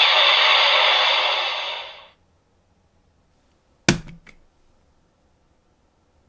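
Electronic sound effect from the DX Haouken Xross Saber toy sword's speaker, a dense hissing blast that fades out about two seconds in. After a pause, a sharp thunk and a smaller click just after it.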